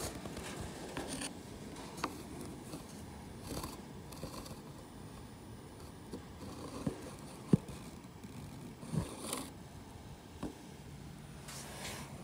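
Handling noise of a camera moving inside an aluminium aircraft wing: scattered light scrapes and small clicks, with one sharp tap about seven and a half seconds in.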